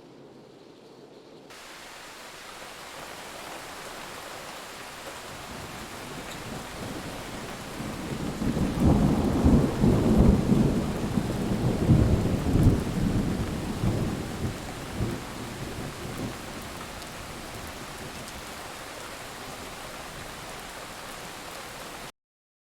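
Steady rain with a long rolling rumble of thunder that builds about eight seconds in, is loudest for several seconds, and dies away. The sound cuts off suddenly near the end.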